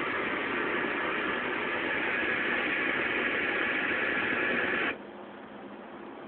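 Analog TV static: a steady, loud hiss of a television tuned to a channel whose analog signal has gone off the air. About five seconds in it drops suddenly to a fainter hiss.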